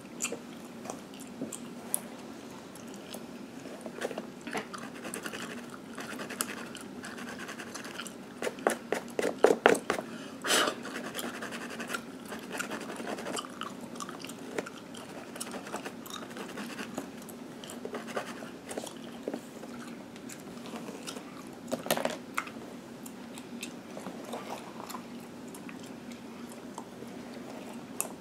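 Gum chewed and smacked close to the microphone: a steady run of wet clicks and pops, with a quick burst of loud smacks about nine seconds in. Fingers and a fine comb scratch through a mannequin head's hair underneath.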